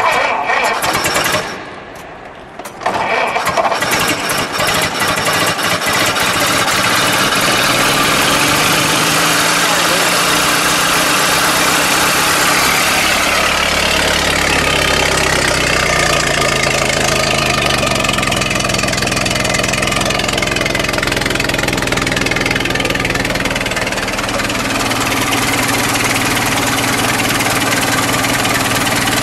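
A 1925 Ford Model T's four-cylinder flathead engine being started. There is a short burst, a brief lull, and then it catches and runs loudly from about three seconds in. In the middle its pitch shifts up and down with the throttle.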